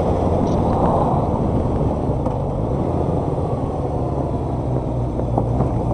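Honda inline-four motorcycle engine running steadily at road speed, under a heavy rush of riding wind on the microphone.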